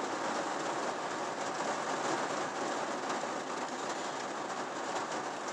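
Heavy rain hitting the roof and windshield of a truck during a severe thunderstorm, heard from inside the cab as a steady rushing noise.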